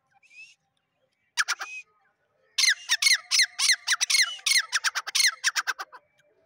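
Male grey francolin (teetar) calling: a short cluster of sharp notes, then a loud, fast run of repeated notes lasting about three and a half seconds, each sliding down in pitch, the notes coming quicker toward the end.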